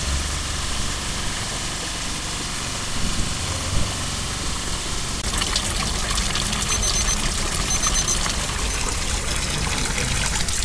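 Hot spring water pouring from a spout into a small wooden bucket and splashing onto a drain grate, a steady running and splashing that turns brighter and splashier about halfway through.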